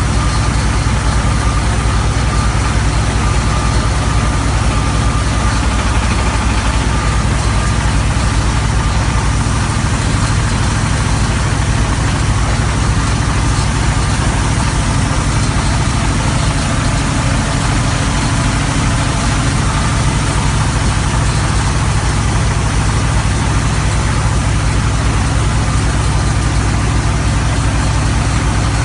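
Engine of an HF120W water well drilling rig running steadily at a constant speed, a continuous low mechanical drone with no change in pitch or level.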